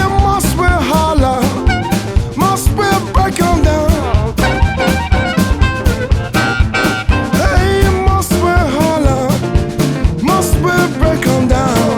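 Upbeat swing-style music with a steady drum-kit beat, brass and a sliding melody line.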